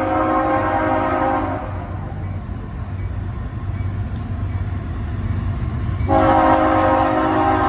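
Diesel locomotive air horn blowing a multi-note chord, cutting off about a second and a half in and sounding again about six seconds in, over the steady low rumble of the train's diesel locomotives.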